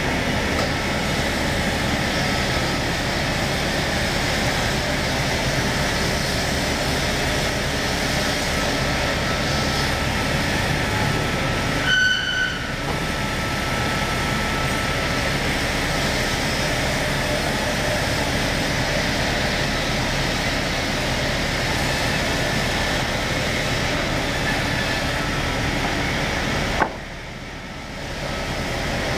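Woodworking machine cutting a squared timber beam being fed through it: a loud, steady mechanical running noise. Midway it dips briefly with a short high whistle. A couple of seconds before the end the noise drops sharply, then a sharp knock.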